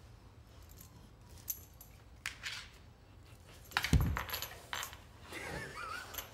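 A dog's metal chain collar clinking and jangling as the Rottweiler noses along a hardwood floor, with a heavy thump about four seconds in as the dog drops down onto the floor, the chain rattling with it.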